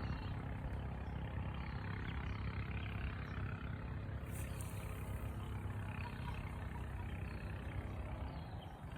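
An engine running steadily, a low drone that holds even throughout.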